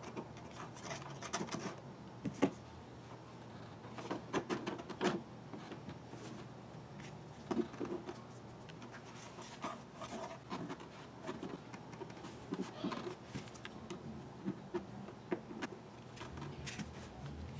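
Hands rubbing over and pressing on the vinyl skin of an R33 Skyline GT-R dashboard, pushing its misaligned passenger airbag lid back into position: scattered soft rubs, taps and small clicks over a steady low hum.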